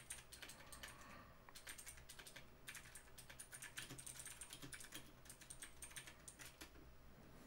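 Faint typing on a computer keyboard: runs of quick key clicks broken by short pauses.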